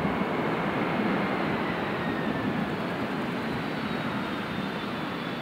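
McDonnell Douglas MD-11F freighter's three jet engines running with a dense, steady rush of noise as the plane rolls out on the runway after touchdown. A faint whine slowly falls in pitch and the noise eases off a little.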